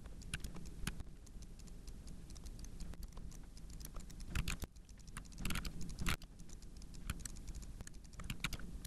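Computer keyboard keys tapped and a mouse clicked: light, irregular clicks, with a few louder ones around the middle.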